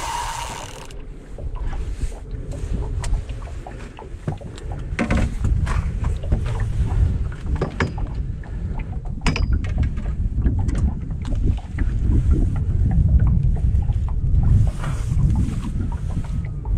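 Wind buffeting the microphone in gusts, over water lapping against a boat's hull, with occasional short knocks and clicks.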